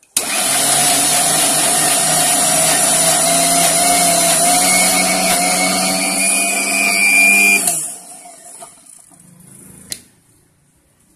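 Electric mixer grinder running, grinding grated coconut with a little water in its steel jar: the motor starts abruptly, runs steadily for about seven seconds, then is switched off and winds down. A single click follows near the end as the jar lid is lifted.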